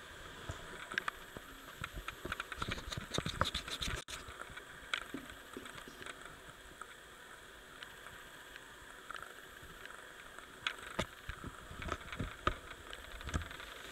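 Handling noise from a finger on a phone: irregular scratching and clicks, in two clusters, early and near the end, with faint hiss between.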